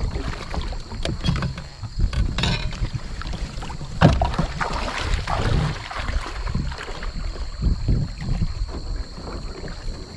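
Kayak paddling on a river: paddle blades splashing and dripping in the water in irregular strokes, with a low rumble of wind on the microphone and a sharp knock about four seconds in.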